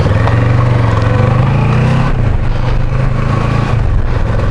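Motorcycle engine running close to the microphone, its revs rising and falling as the bike gets under way, with a brief dip about two seconds in.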